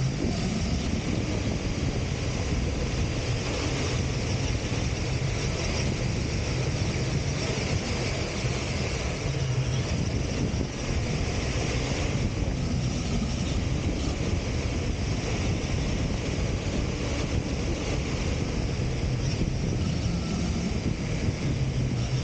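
Steady wind rush on the microphone of a camera mounted on a large off-road RC car, with the car running over loose desert sand underneath.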